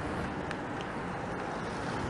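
Wind buffeting the microphone over a steady rush of sea noise, with a couple of faint ticks.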